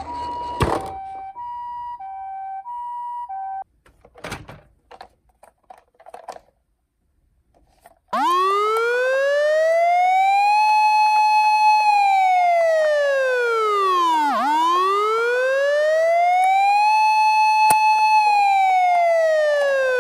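Toy emergency-vehicle minicar's electronic siren. For the first few seconds it sounds a two-note hi-lo ambulance pattern, then come a few clicks and rattles. From about eight seconds in a loud wailing siren slowly rises, holds at the top, falls and rises again, a police-car-style wail.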